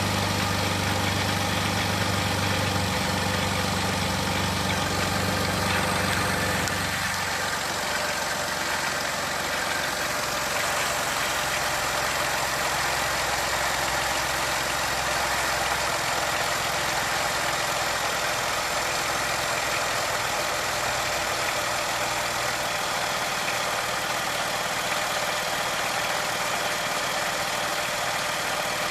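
2007 Jeep Wrangler Unlimited X's 3.8-litre V6 idling steadily, heard up close in the engine bay. About seven seconds in, a strong low hum drops away and the running sound becomes thinner.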